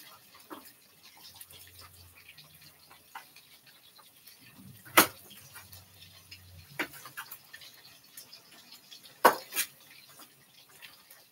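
A few sharp kitchen knocks and clatters of a knife and utensils against a cutting board and counter: one about halfway, one a little later, and two close together near the end. Under them is a faint crackle of oil frying in a pan.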